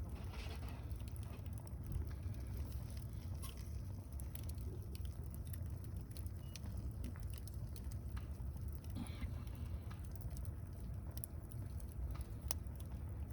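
Wood campfire crackling, with scattered sharp pops and ticks over a steady low rumble, and a short rustle near the start and again about nine seconds in.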